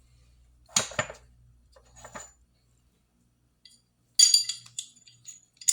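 Metal parts of a Sig Sauer P250 9mm pistol clicking and clinking together as the pistol is reassembled by hand. Two sharp knocks come about a second in, then a quick run of ringing metallic clinks a little after four seconds.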